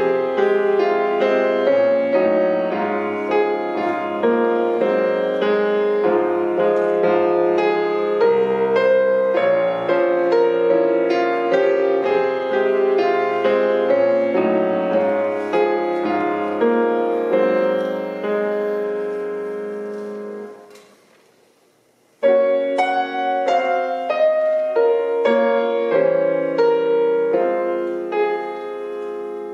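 Solo grand piano playing chords and melody. About two-thirds of the way through, the sound dies away to near silence for a moment, then the playing comes back in at full level and softens again near the end.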